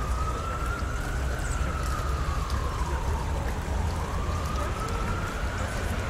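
Emergency-vehicle siren in a slow wail, its pitch sliding up and down about every four to five seconds, over a steady splash of fountain water and a low rumble.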